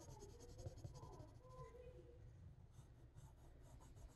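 Faint scratching of a red colored pencil stroked back and forth on sketchbook paper while shading. The strokes come in a quick run at the start, pause, and pick up again a little after the middle.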